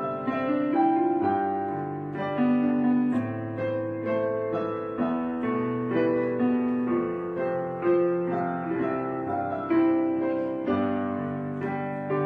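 Background piano music: a slow melody over held chords.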